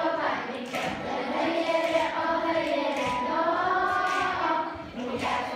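A large group of schoolchildren singing a song together in unison.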